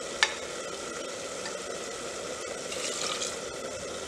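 Potato and paneer masala sizzling steadily in an aluminium pressure cooker, with one light click about a quarter second in and a little more crackle around three seconds in.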